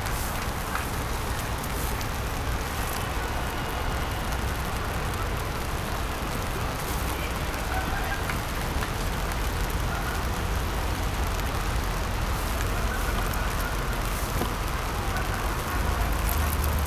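Steady city background noise: a low rumble of distant traffic under a constant hiss, with the rumble growing a little stronger near the end.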